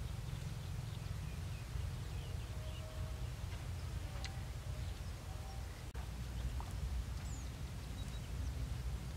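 Wind rumbling on the microphone in an open field, with a few faint short bird chirps and scattered faint clicks over it.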